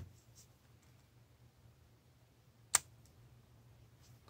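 Small metal parts of a Minox B camera's brass shutter-blade holder clicking as they are handled with fingers and a pick: one sharp click nearly three seconds in and a fainter one at the start, over a faint low hum.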